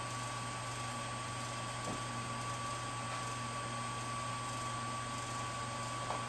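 Portable band sawmill running steadily: an even mechanical noise with a constant high whine held on one note over a low hum, and two faint clicks.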